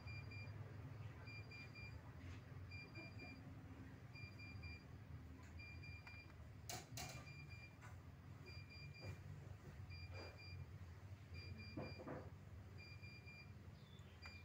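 Faint high beep repeating at an even pace, about once every one and a half seconds, over a low steady hum, with two sharp clicks about seven seconds in.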